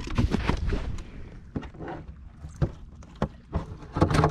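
Handling noise in a fishing boat: a string of sharp knocks and rattles, the loudest cluster near the end over a low hum.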